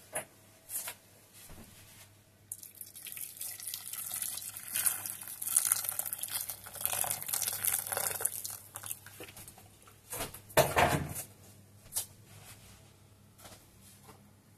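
Water poured from a kettle into a stainless-steel pot of cut root vegetables, a steady stream lasting several seconds, followed by a single loud knock about ten and a half seconds in and a few light clicks.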